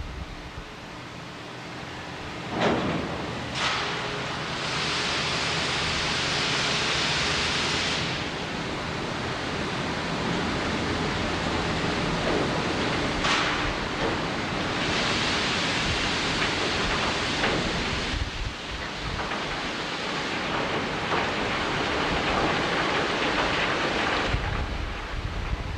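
Steady industrial roar at a blast furnace plant, with a low hum running under it. Two long hisses of about three seconds each rise over the roar, and a few sharp cracks come early on and again about halfway.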